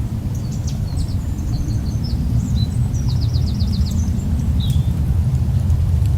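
Birds at a feeder chirping: short high calls scattered through, with a quick run of about six notes near the middle. All of it sits over a loud, steady low rumble.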